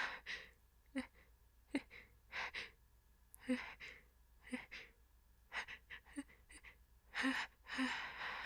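A woman's quick, hitching gasps, about one a second, as she fights an oncoming sneeze set off by a tickle in her nose. Two longer, breathier gasps come near the end.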